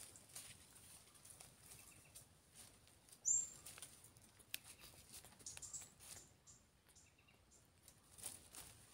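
Quiet forest ambience: faint scattered ticks and rustles over a steady faint high hiss, with one short, sharp high chirp about three seconds in.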